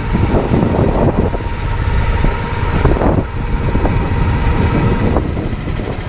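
Small tour boat's motor running while the boat is under way on the lake.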